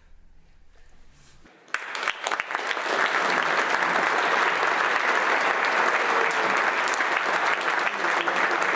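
Concert hall audience applause after a brief hush: a few scattered claps about a second and a half in, building within a second or so to full, steady clapping.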